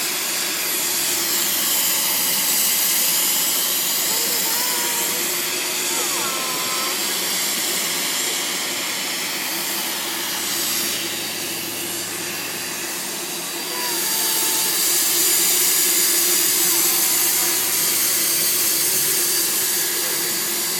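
Steam locomotive hissing steadily as it vents steam from low at its cylinders, with a low hum underneath. The hiss grows louder about fourteen seconds in.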